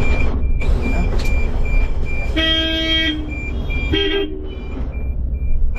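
Street traffic heard from inside a bus cab, with a steady low rumble and a rapid high-pitched beep repeating about three times a second. A vehicle horn toots for under a second about two and a half seconds in, and again briefly at a slightly higher pitch about four seconds in.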